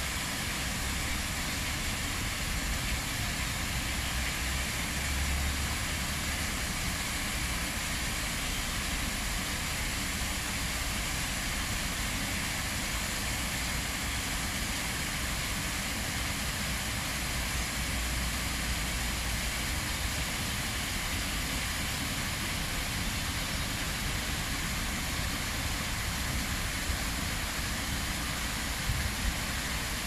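Small waterfall pouring over rocks into a pool: a steady rushing and splashing of water with a low rumble underneath.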